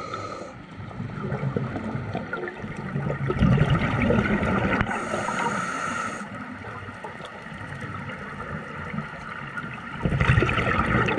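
Underwater sound of a scuba dive: bubbling and gurgling from a diver's exhaled breath, louder in two bursts, about three seconds in and again near the end, over a steady hum.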